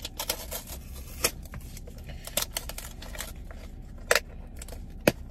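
Plastic food packaging being handled: scattered crinkles and clicks, with a few sharper snaps, about a second in, near four seconds and near the end.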